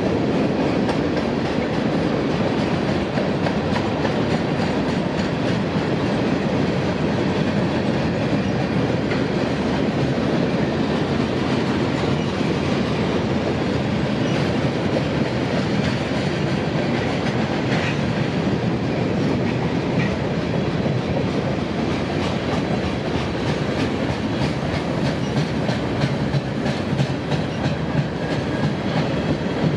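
Mixed freight train of tank cars, boxcars and hoppers rolling past steadily, its wheels clicking over rail joints, the clicks clearer near the end. A couple of faint, brief wheel squeals come about halfway through.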